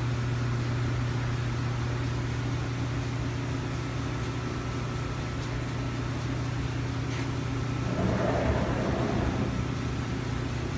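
Steady low hum of machinery or ventilation, with a brief rustling noise about eight seconds in.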